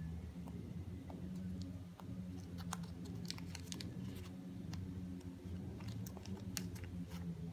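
Fingers handling a long wallet, rubbing and picking at its card slots: a run of small scratchy clicks and rustles, thickest from a couple of seconds in, over a steady low hum.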